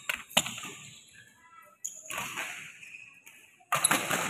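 Badminton rally: sharp smacks of rackets striking the shuttlecock, right at the start and again near the end, with the return shot between, plus short shoe squeaks and footfalls on the court.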